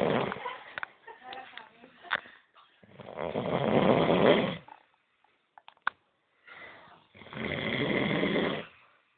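A sleeping person snoring hard, one long snore roughly every four seconds. A snore is fading out at the start, a loud one comes about three seconds in, and another about seven seconds in, each lasting about a second and a half.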